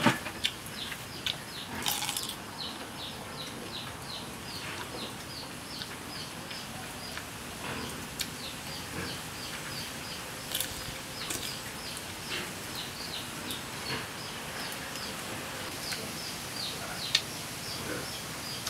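A bird calling in a fast, steady series of short, high, falling chirps, about three a second. A few sharp clicks and knocks come now and then.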